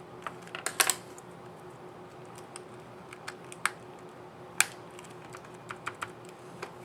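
Irregular sharp clicks of an Asus ZenBook UX301LA laptop's scissor-switch keys being pressed, with a quick cluster of the loudest clicks about a second in and single clicks spaced through the rest.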